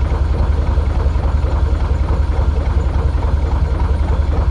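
Boat diesel engine idling steadily close by, a deep, even, rapid low thud that does not change.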